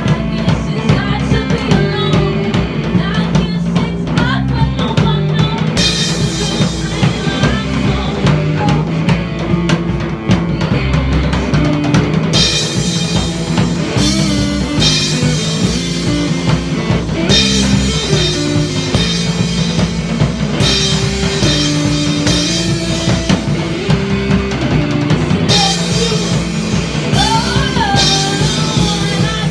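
Live rock band playing loud: electric guitar, electric bass and a drum kit. The sound grows brighter about six seconds in, and singing comes in near the end.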